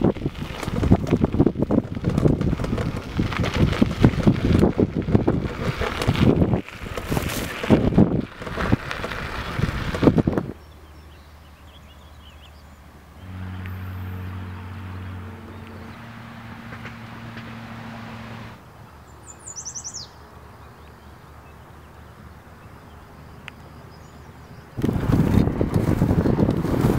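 Wind buffeting the microphone during a bicycle ride on a dirt trail, gusty and loud with many small knocks. About ten seconds in it gives way to quiet open-air ambience with a low steady hum for a few seconds and a short bird chirp. The wind noise returns near the end.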